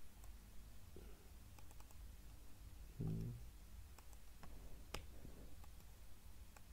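Faint computer mouse clicks and keyboard keystrokes, a few scattered sharp clicks with the loudest about five seconds in. A brief low sound about three seconds in is the loudest moment.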